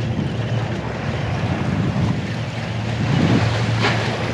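Wind buffeting the microphone and water washing against a harbour seawall, over a steady low drone that grows a little louder about three seconds in. A single sharp click comes near the end.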